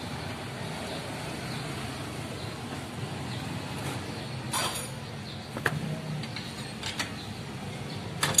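A few sharp metal clicks of hand tools and parts handled on a Bajaj RE engine, spaced a second or so apart over a steady low background hum.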